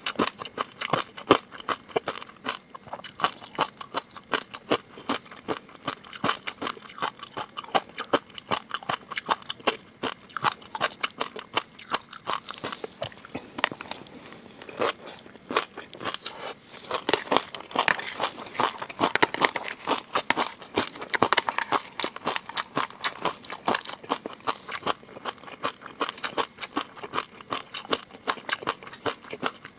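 Close-miked eating sounds: a person chewing and biting food with many wet, crunchy clicks and crackles. They come thickest a little past the middle.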